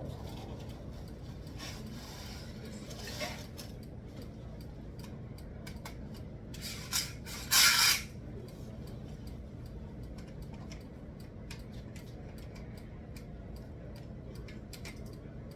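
Rubbing and scraping of parts being handled during assembly, with short scrapes now and then and a louder half-second scrape about seven and a half seconds in.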